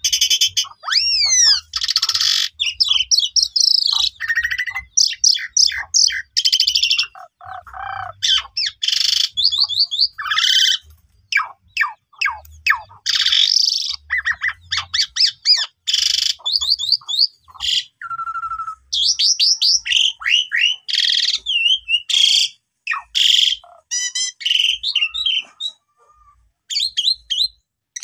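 Asian pied starling (jalak suren) singing a long, varied song of fast sweeping whistles and chattering notes. A few short pauses break it.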